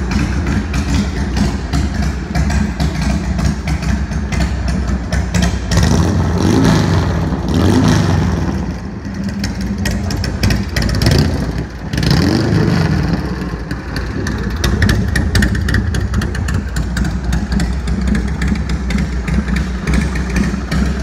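V-twin engine of a 2000 Simms custom motorcycle idling, revved up and let fall back twice, about six seconds in and again about twelve seconds in.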